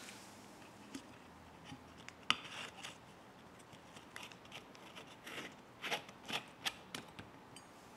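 Coins dropped one by one through the slot of a tzedakah (charity) box: a series of short, sharp clinks, the loudest a little over two seconds in.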